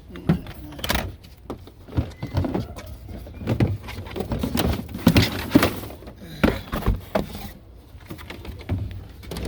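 Irregular clicks, knocks and scrapes of a car's interior trim panel being pulled out and handled, with the sharpest knocks about five seconds in.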